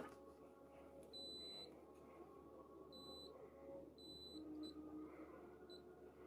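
Digital multimeter beeping on its continuity setting as the probes touch transistor legs: several short high beeps, some about half a second long and some only brief blips. Each beep signals continuity across the legs being probed, the test the technician uses to find shorted transistors.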